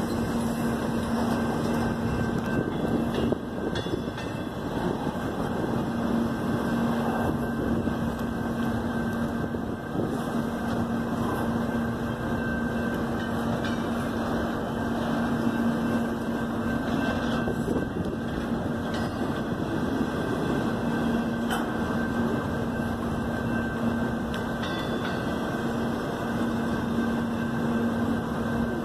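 Double-stack container train on steel well cars rolling steadily past at close range: continuous noise of wheels on the rails and cars moving, with a steady low hum that fades out and back in a few times.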